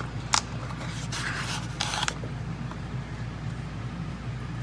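Brief handling noises: a sharp click, then two short rustling scrapes in the first two seconds, over a steady low hum.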